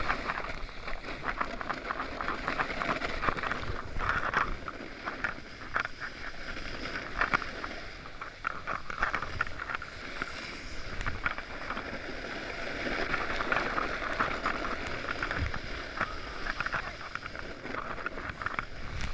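Snowboard sliding over snow: a continuous scraping hiss that surges unevenly as the board's edge bites and releases.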